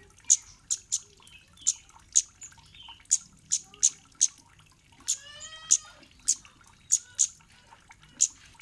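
Cit kemade bird calling: sharp, very high 'cit' notes repeated about twice a second, with a longer, lower whining call about five seconds in.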